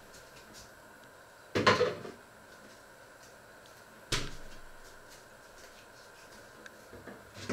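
Kitchen cabinet being opened and shut: a rattling knock about one and a half seconds in, a sharp bang about four seconds in, and a few light clicks near the end.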